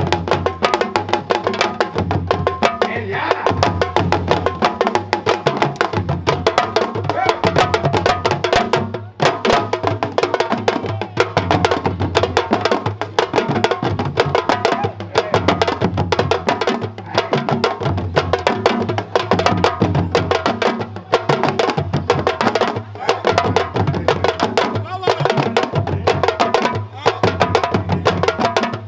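West African drum ensemble playing live, a fast, dense rhythm of sharp strokes over a steady low part, with a brief drop about nine seconds in.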